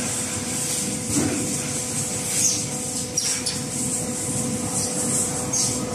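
3D fence wire mesh production line running: a steady machine hum with a constant tone, and several brief hisses over it.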